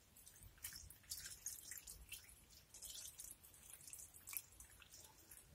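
Pickling brine of vinegar, salt and water poured in a thin stream into a glass jar packed with shredded white cabbage: a faint, uneven trickle and patter of liquid.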